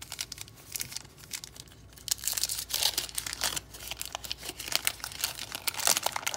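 Waxed-paper wrapper of a 1987 Topps baseball card pack crinkling and tearing as it is pulled open by hand: light crackles at first, then dense crackling from about two seconds in.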